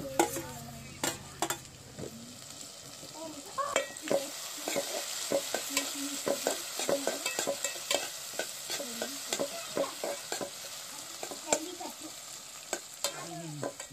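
Chopped tomatoes, onions and green chillies sizzling in a metal pot while a metal spoon stirs them, clicking and scraping against the pot many times.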